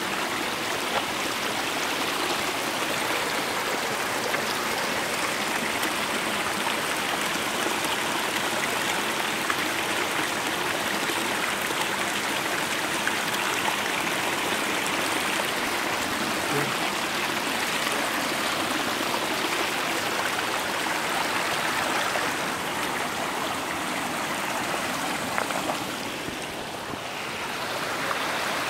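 Small mountain brook rushing and splashing steadily over rocks and little cascades. It dips briefly quieter near the end.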